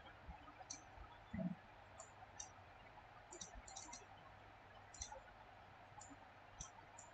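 Faint computer mouse clicks, about a dozen scattered irregularly, some in quick pairs, over near-silent room tone, with one soft low thump about a second and a half in.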